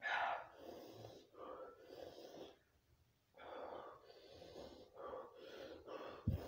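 A man breathing hard through an open mouth, a run of heavy hissing breaths with a short pause about halfway, as he tries to cool a mouth burning from the Carolina Reaper heat of a Jolo chip. A dull thump comes just before the end.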